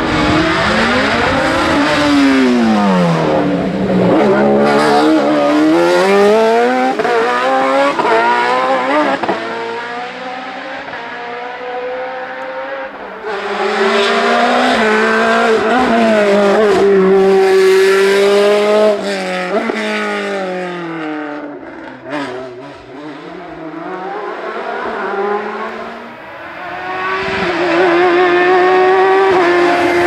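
Racing cars, a single-seater formula car and a sports prototype among them, accelerating hard up a hill-climb course one after another. The engines rev high, and the pitch climbs and then drops back at each gear change. The sound swells loud as each car comes near and fades between cars.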